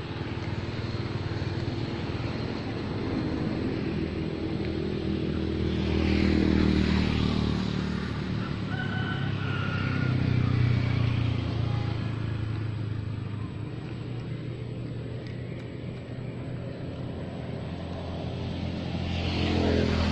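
Engines of motor vehicles passing on a nearby road, each swelling and fading as it goes by: once about six seconds in, again about ten seconds in, and once more near the end. A short high-pitched call sounds about nine seconds in.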